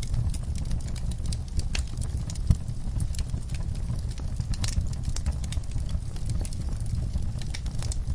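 Wood fire crackling: irregular sharp pops and snaps over a steady low rumble, with one louder pop about two and a half seconds in.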